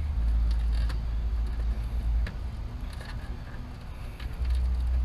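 Wind buffeting the microphone as a deep rumble that swells and eases, with a few faint clicks from hand tools working the boat's rusted fasteners.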